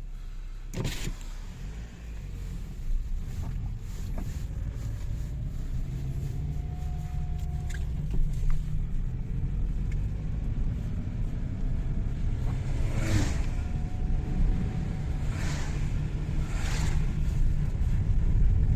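Lada Vesta on the move, with a steady low running hum and a faint rising whistle that comes twice, from brake discs rusted overnight scraping the pads. The cheap aftermarket discs are the cause.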